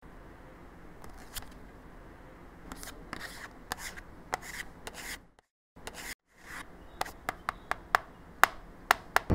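A card scraping and tapping on a hard tabletop, with a quick run of sharp taps in the last couple of seconds.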